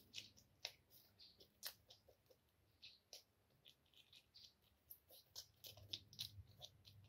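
Faint, irregular clicks and short scratching sounds of something being handled.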